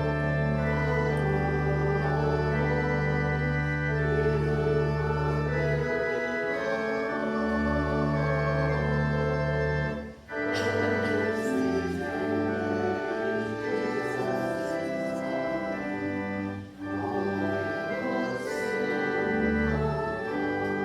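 Church organ playing a hymn in full held chords over a sustained deep pedal bass, with two brief breaks between phrases.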